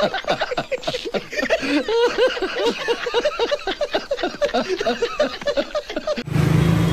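Rapid laughter: a long run of short pitched syllables, about five a second, that cuts off suddenly near the end.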